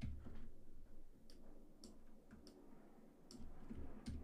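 Computer keyboard keys tapped faintly, several separate clicks a fraction of a second to a second apart: keyboard shortcuts nudging a glyph's spacing.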